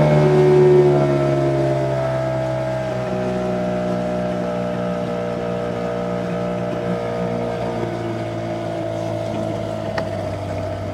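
Small boat's engine throttling down over the first couple of seconds, then running steadily at low speed.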